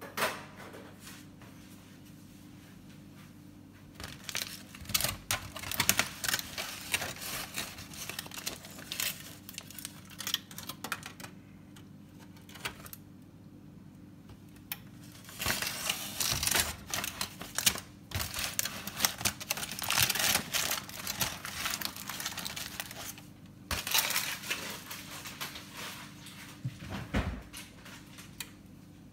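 Aluminium foil crinkling and rustling in irregular bursts as it is handled and folded around a cooked beef rib roast, over a low steady hum.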